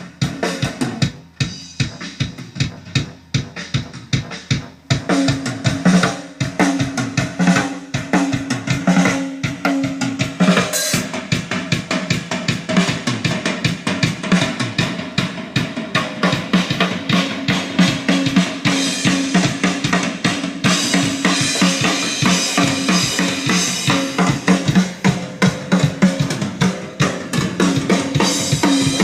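Mapex drum kit played in a continuous, busy groove: rapid kick and snare strokes, with cymbals washing in from about ten seconds in. This is a sound check before recording.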